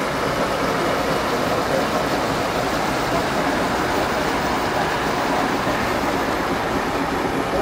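Steady, loud rushing background noise with no distinct events: an even wash like traffic or wind at an outdoor track.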